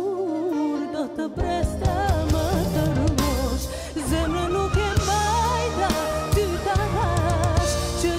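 A woman singing an Albanian pop ballad with a live band. The bass and drums come in about a second and a half in, under her wavering sung line.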